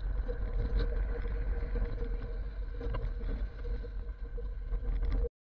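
Pickup truck driving on gravel while towing an empty flatbed trailer: a steady low rumble with a constant drone, broken by a few short knocks and rattles. The sound cuts off suddenly near the end.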